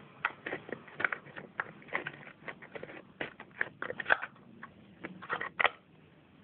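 Irregular clicks, taps and scrapes of a small ammunition box for an airsoft Desert Eagle being handled and opened. Two sharper snaps stand out, about four seconds in and near the end, and the clicking stops shortly before the end.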